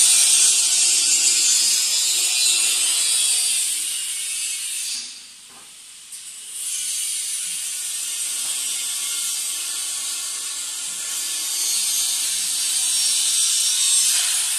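Rapid metallic ratcheting clicks, typical of a ratchet wrench being worked on the bolts of a steel machine frame, stopping briefly about five seconds in and then going on again.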